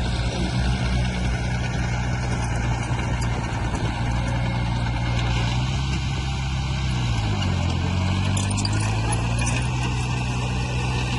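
Heavy diesel engine of earthmoving equipment running steadily, its pitch dropping about seven seconds in and holding lower as the engine slows.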